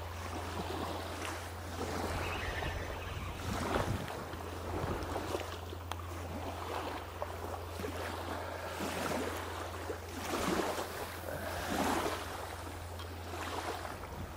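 Wind on the microphone and water lapping at the riverbank: a steady rushing noise that swells in gusts several times.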